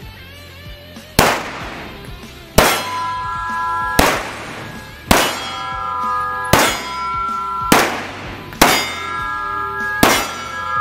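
About eight pistol shots fired one at a time, roughly one every second to second and a half, each crack followed by a sustained metallic ringing that carries on until the next shot.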